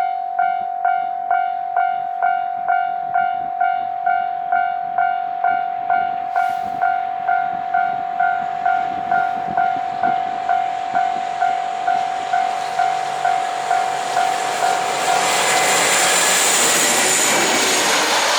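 Japanese level-crossing warning bell ringing its steady ding about twice a second. About fifteen seconds in, the bell is drowned by the loud rushing noise of the DF200 diesel-electric locomotive and its freight train arriving over the crossing.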